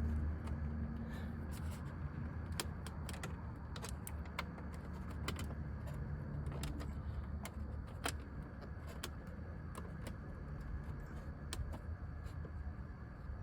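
Scattered light clicks and small metallic rattles from hand tools and screws as trim screws are driven in under a car's dashboard, over a low rumble.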